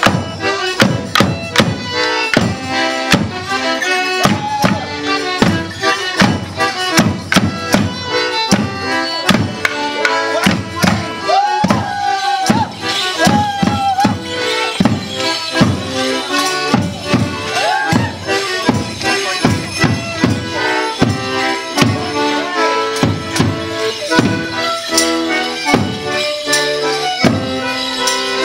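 A band playing a traditional Border Morris dance tune, with a melody line over a drum beating a steady beat.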